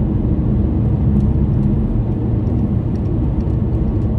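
Steady low drone of a car's engine and tyres on the highway, heard from inside the moving car's cabin.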